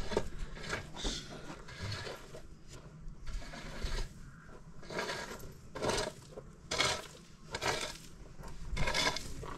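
Wet cement mortar being smeared and smoothed by hand against a stone sink basin: a series of short wet rubbing and scraping strokes, coming more often in the second half.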